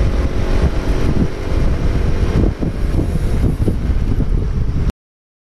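Wind buffeting the onboard camera's microphone on a sport motorcycle at speed, with the engine running steadily underneath. It cuts off suddenly near the end.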